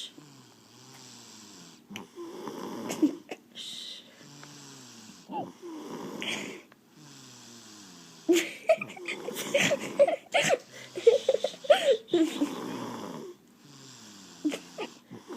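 Snoring: noisy, rasping breaths repeating every few seconds, busier and louder through the middle.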